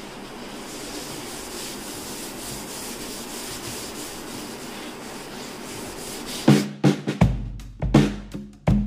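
Steady rubbing as the sink is scrubbed with baking soda and vinegar to lift stains. About six and a half seconds in, loud background music with a heavy drum beat starts.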